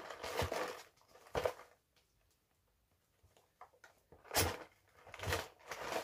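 Cardboard box being handled and its lid flap pulled open: scraping and rustling of card, with a brief pause in the middle and the loudest scrape about four and a half seconds in as the flap comes open.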